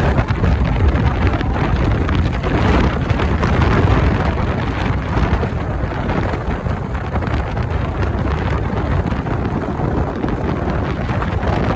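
Heavy wind buffeting the microphone of a motorcycle rider at speed, a steady low rushing with the bike's road noise under it.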